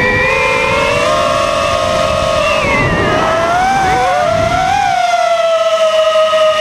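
Mark4 FPV quadcopter's brushless motors and propellers whining, several pitches gliding up and down with the throttle and crossing around the middle before settling to a steady whine.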